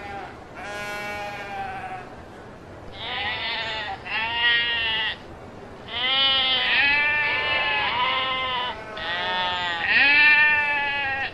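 Several sheep bleating in turn: about six drawn-out, quavering bleats, some overlapping, the loudest near the end.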